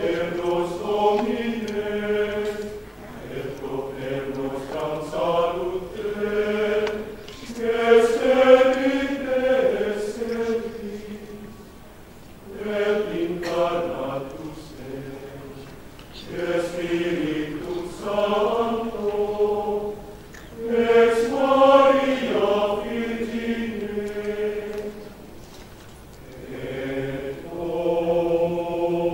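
Men's choir singing Gregorian chant, in phrases of a few seconds each with short breaths between them.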